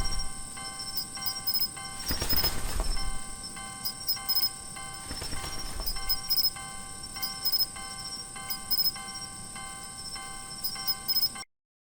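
Japanese level-crossing warning bell ringing, repeating in an even rhythm, with rushing noise that swells and fades three times. It cuts off suddenly near the end.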